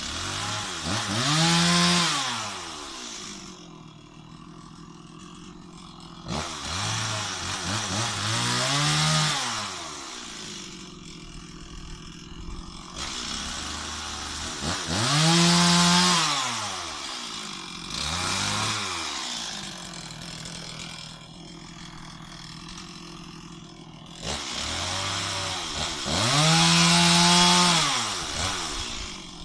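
Stihl MS 260 two-stroke chainsaw revved up and let back down to idle over and over: four full revs and one shorter blip, each rising and falling in pitch, with steady idling between them.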